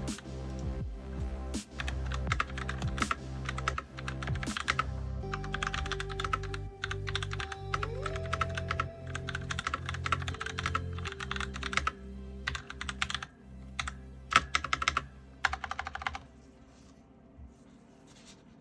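Fast typing on a Razer BlackWidow Lite mechanical keyboard with Razer Orange tactile switches: a dense run of key clicks over background music. The typing stops near the end.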